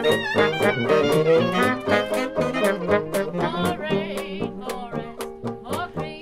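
Small hot jazz band playing: trombone, saxophone and clarinet lines over tuba, with banjo and washboard keeping an even beat of about four strokes a second.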